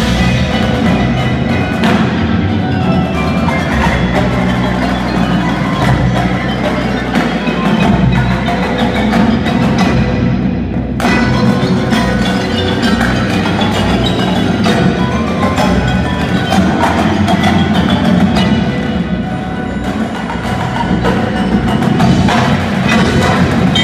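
High school indoor percussion ensemble playing: marimbas and vibraphones with snare drums, tenor drums and bass drums, in a dense, continuous stream of struck notes.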